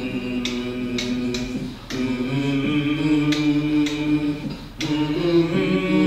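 Group of voices singing a cappella in long held notes, with sharp clicks every second or so.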